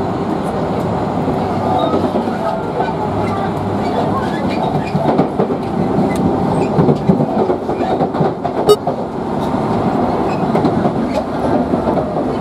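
Tokyu Toyoko Line electric train running: a steady rumble of wheels and motors, with clicks of the wheels passing over rail joints.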